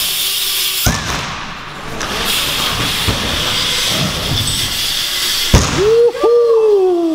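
BMX bike tyres rolling over wooden skatepark ramps with a steady hiss, with a sharp landing knock about a second in and a louder knock about five and a half seconds in. A rider's falling "woohoo" cheer follows near the end.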